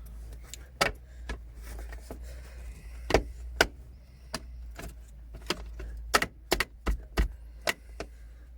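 Irregular sharp clicks and knocks from hands and tools working on a car's gear shifter assembly while a short shifter is fitted, about a dozen in all, bunched into two clusters about three and six seconds in.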